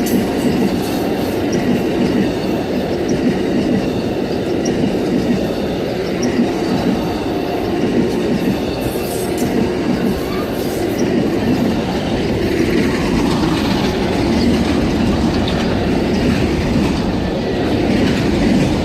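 Amtrak Auto Train rolling past at close range: a steady, loud rumble of steel wheels on the rails.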